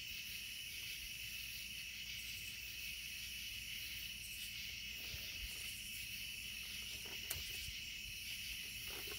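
Night insects chirping in a steady, high-pitched chorus.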